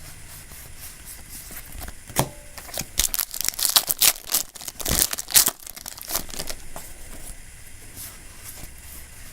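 Foil Yu-Gi-Oh booster pack wrapper crinkling and tearing open, with a cluster of sharp rustles and rips loudest between about three and five and a half seconds in.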